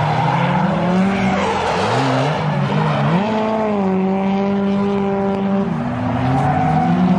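Two drift cars sliding in tandem, engines revving up and down with the throttle over a haze of tyre noise. About three seconds in, the engine note climbs and holds high for a couple of seconds, then falls away near the end.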